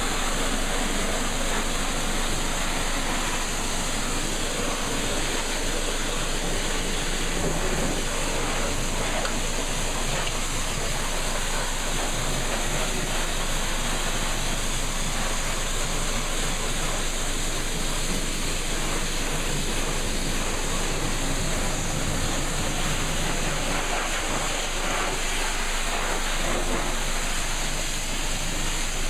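Pressure washer jet spraying water over a car's engine bay: a steady hiss and spatter of water on the engine.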